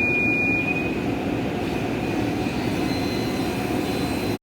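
SawStop table saw and its dust collector running together: a steady, loud noise of motor and rushing air, with a thin high whine that fades out about a second in. The sound cuts off abruptly near the end.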